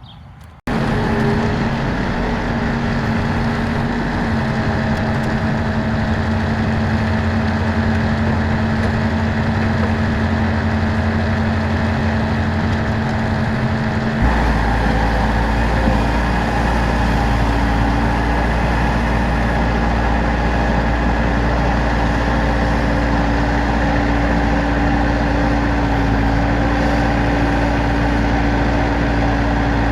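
An engine running steadily. Its note changes abruptly about 14 seconds in, settling into a heavier low rumble.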